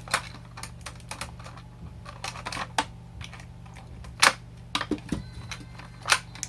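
Irregular clicks and taps of plastic toy packaging being handled and cut open, with a sharper click about four seconds in and another near the end, over a steady low hum.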